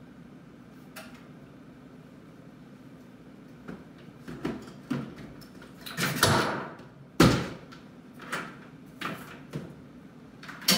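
A run of knocks and bumps from gear being handled and set down. It is quiet at first, and the two loudest thumps come about six and seven seconds in.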